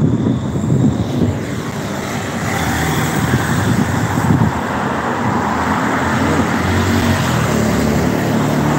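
Road traffic on a wide multi-lane road: engine rumble and tyre noise of passing vehicles, swelling from about two seconds in as traffic goes by.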